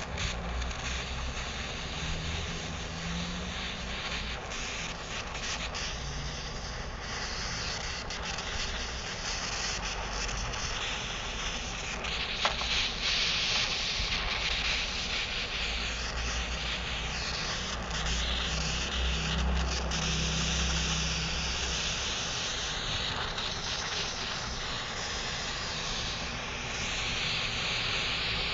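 Butane jet torch lighter burning: a steady hiss of the flame with a low rumble under it, swelling and easing a little as it is played over the sugar.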